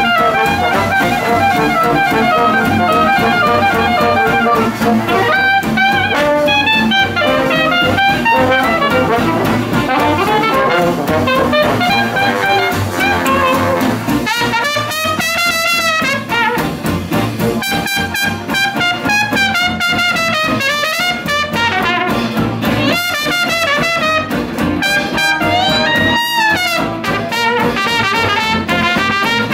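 Traditional New Orleans-style jazz band playing, with cornet, soprano saxophone and trombone over a rhythm section of banjo, guitar, string bass and drums. The horns play together at first; about halfway through the soprano sax drops out and the cornet leads with wavering held notes, the trombone under it.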